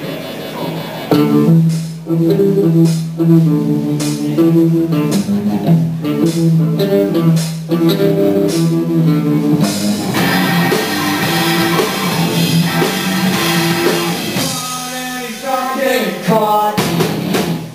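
A rock band playing live, starting about a second in: a repeating riff over a held low note, with drums. From about ten seconds in the sound gets fuller and busier, with cymbals filling the highs.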